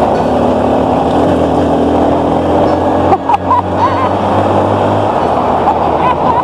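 Kawasaki KLX150L's air-cooled single-cylinder four-stroke engine running as the dirt bike rides over a rocky gravel track, with wind rushing over the microphone.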